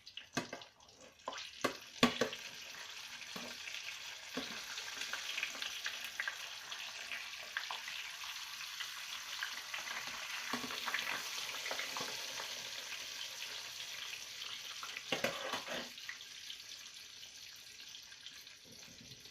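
Flour-dredged tilapia sizzling and crackling in hot oil in a frying pan, the hiss building for the first ten seconds or so and then easing a little. A sharp knock about two seconds in is the loudest sound, with a few louder pops or clatters around fifteen seconds.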